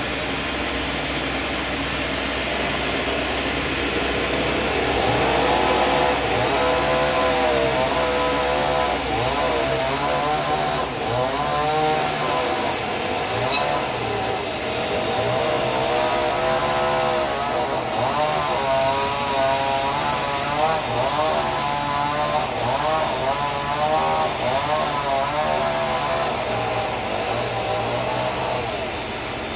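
Band sawmill cutting wood: a steady engine hum under a blade whine whose pitch wavers up and down as the blade works through the timber. The cut gets louder about five seconds in.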